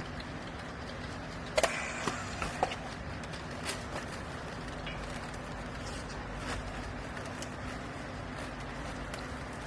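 Steady hum of running machinery with a constant low tone, broken by a few sharp knocks and clicks about one and a half to two and a half seconds in.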